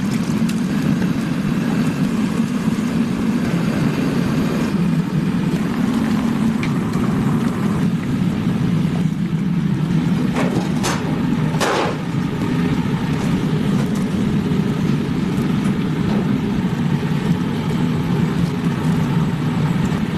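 Steady low mechanical drone of running machinery, with two short sharp knocks less than a second apart a little past halfway.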